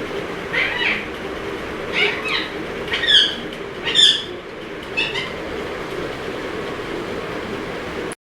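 Indian ringneck parrot giving five short, high calls about a second apart, several sweeping down in pitch, over a steady mechanical hum.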